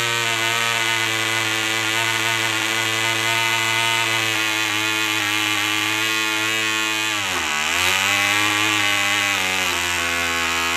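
Clan 0.24cc model diesel engine running fast on its bench stand, swinging a Tornado 5x4 propeller with a steady, high-pitched buzz. About seven seconds in its speed dips sharply and picks up again as it is adjusted by hand.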